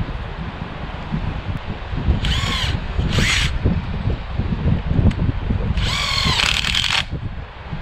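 Cordless drill running in three short bursts while wire fence mesh is fastened to a wooden post: two of about half a second a couple of seconds in, then a longer one of about a second near the end. Steady wind rumble on the microphone underneath.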